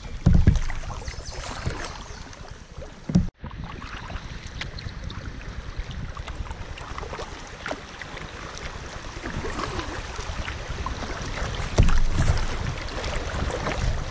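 Creek water rushing and splashing around a kayak's bow as it drifts through choppy riffles, with low gusty rumbles of wind buffeting the microphone about a second in and again near the end. The sound cuts out for an instant about three seconds in.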